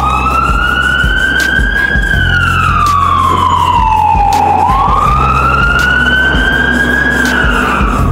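A siren wail that rises slowly, falls, then rises again, over a background music track with a steady bass line.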